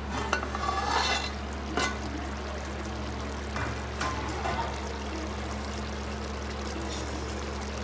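Spiced chicken simmering in its own juices in a large aluminium pot, the liquid bubbling at a low boil. There are a few light clinks in the first seconds as the lid is lifted off with a cloth, over a steady low hum.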